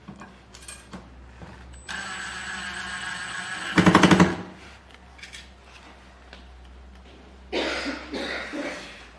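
Milwaukee M12 cordless impact driver driving a screw: its motor whines for about two seconds, then gives a brief burst of rapid impact hammering as the screw seats. A second, rougher noise follows near the end.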